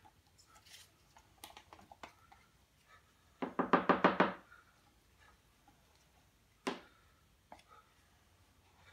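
A quick run of about eight sharp knocks in a second, a few seconds in, then one more knock later, with small clicks and taps in between: a stick and cup being knocked and handled while working resin.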